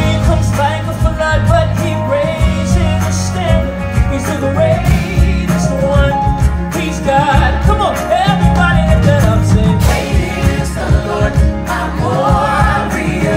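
Live gospel band performing: a sung melody over electric keyboard and bass guitar, with a steady beat, loud throughout.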